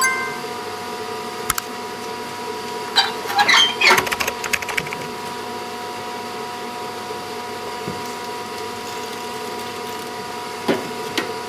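A flurry of metallic clicking and rattling for about two seconds, starting about three seconds in, with a few single clicks later, over a steady hum.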